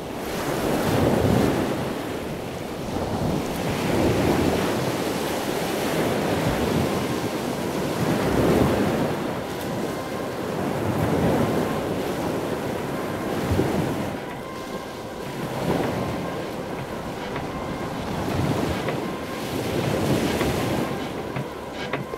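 Ocean waves breaking and washing in, the surf swelling and falling back every two to three seconds.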